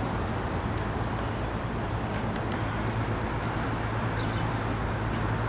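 Steady outdoor background noise with a constant low hum and a few faint clicks. A thin, high steady tone starts about four and a half seconds in.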